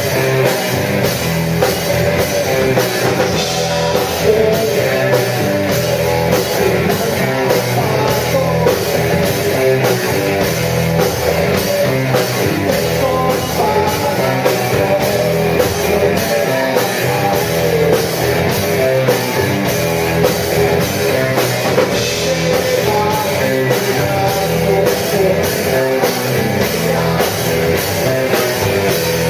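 Live rock band playing a blues-rock song at full volume: electric guitars, bass and drum kit keeping a steady beat.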